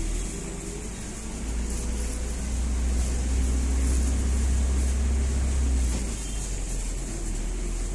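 Running noise of a moving road vehicle heard from inside it: a deep engine and road rumble with a steady hiss above it. The rumble grows louder for a few seconds from about two and a half seconds in, then drops back.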